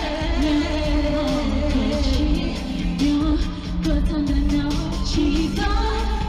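Live pop song: female vocals sung through microphones over amplified backing music with a steady deep bass.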